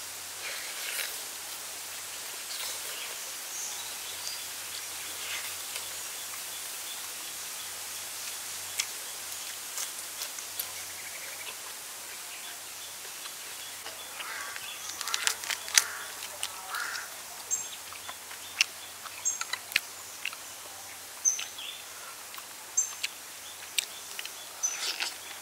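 Steady outdoor forest hiss with short high bird chirps in the second half. From about halfway, a run of sharp clicks and smacks from someone chewing grilled chicken eaten by hand.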